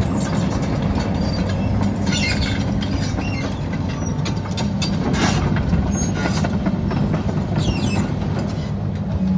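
XCMG 210 excavator's Cummins diesel engine running steadily while the machine works, with a few sharp cracks and knocks scattered through it.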